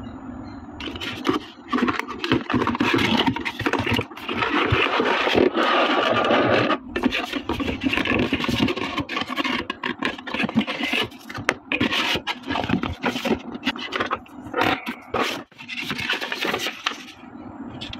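Cardboard packaging and a clear plastic blister tray scraping, rubbing and clicking as they are slid out of the box and handled. Near the end, a folded paper instruction sheet rustles as it is opened.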